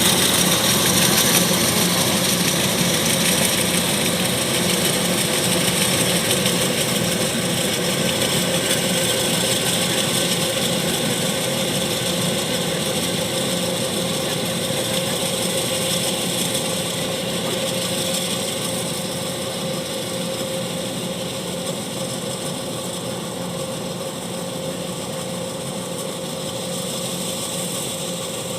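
Kubota DC-105X combine harvester running steadily, its diesel engine and threshing machinery giving an even hum under a broad mechanical whir, slowly growing fainter.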